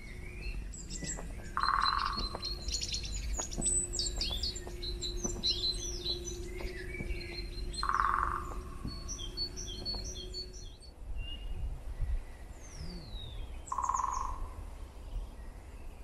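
Wild birds singing: quick, high, trilling songs, with a lower call repeated three times about six seconds apart.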